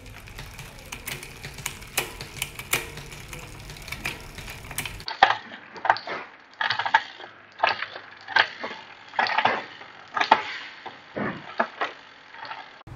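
Bicycle chain running on a spinning rear cassette as a Shimano Ultegra 11-speed rear derailleur shifts, with sharp clicks and chain clatter. About five seconds in the sound cuts to a second bike, where the clatters come louder and irregularly, roughly one or two a second.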